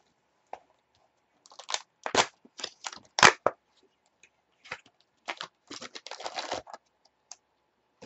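Cardboard trading-card box being torn open and its packs pulled out and set down: a run of short tearing and crinkling sounds, the loudest about three seconds in.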